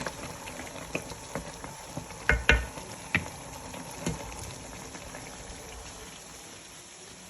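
Food sizzling and bubbling steadily in a pan, with scattered clinks and knocks of a utensil against the pan; the loudest is a double knock about two and a half seconds in.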